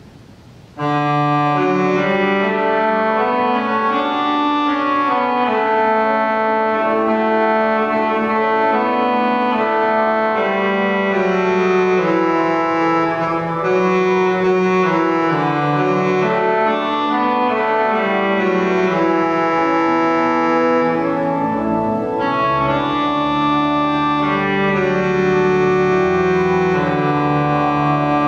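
Church organ playing a hymn in sustained chords, starting suddenly about a second in.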